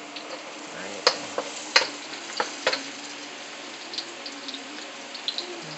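Chopped garlic sizzling in hot oil in a wok while being stirred with a wooden spoon, a steady sizzle broken by several sharp clicks in the first half.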